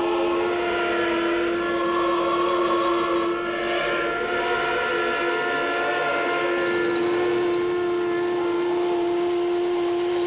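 Train horns held in one long, steady blast, several tones sounding together over a strong low note.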